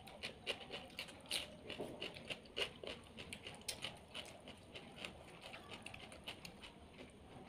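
Eating sounds: a person chewing and smacking while picking at fried fish and rice with the fingers, many short irregular clicks.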